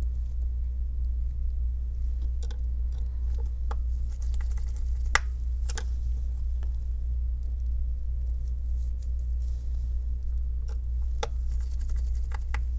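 Scattered small clicks and taps as a screwdriver and gloved fingers handle the parts inside an opened iPhone 7, over a steady low hum.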